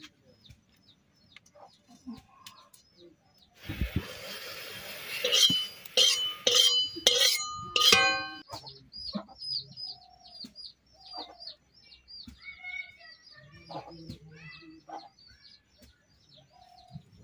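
A rooster crowing about halfway in, the loudest sound, just after a brief hiss. Around it a small bird chirps over and over in short, quick, high calls, and hens cluck softly.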